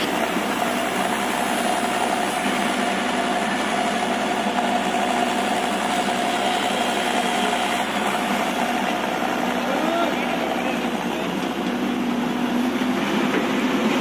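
Caterpillar hydraulic excavator's diesel engine running steadily under load as it swings a bucket of soil, with a steady whine over the engine noise.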